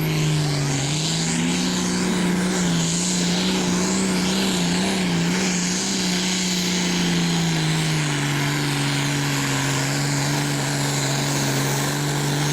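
International Harvester Super Farm pulling tractor's turbocharged diesel engine running hard under load as it pulls the weight-transfer sled down the track. Its steady high-revving note drops to a lower pitch about eight seconds in.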